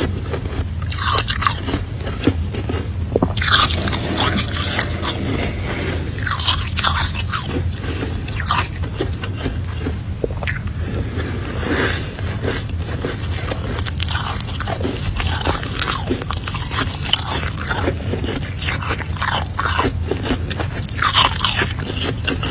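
Close-miked biting and chewing of freezer frost: irregular crisp crunches one after another, over a steady low hum.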